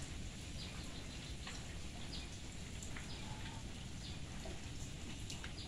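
Steady rain falling on shallow floodwater covering a yard, with short high-pitched sounds scattered through it.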